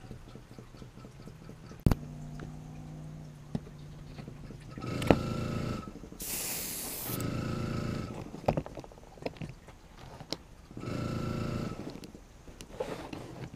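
Airbrush spraying in several short spells, the loudest a burst of hissing air about six seconds in, with a few sharp knocks as the balsa lure is handled and set down.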